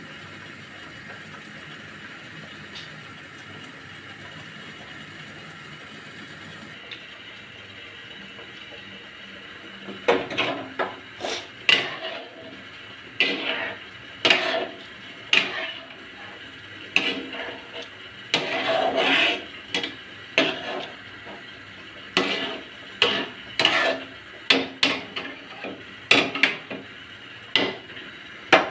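Metal spoon or spatula stirring a curry in a metal pan: irregular clanks and scrapes against the pan, starting about ten seconds in after a stretch of steady faint hiss.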